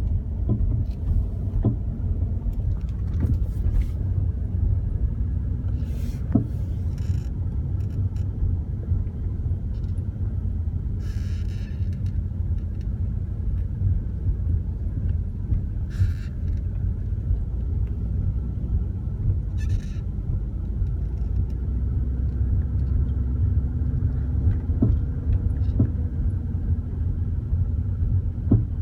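BMW E34 on the move, a steady low rumble with sharp knocks every now and then: the sudden clunking noise the car has developed.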